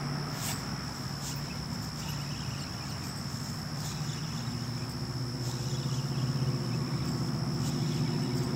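Steady high-pitched trill of evening insects, crickets or similar, over a low hum that grows louder toward the end, with a few faint clicks.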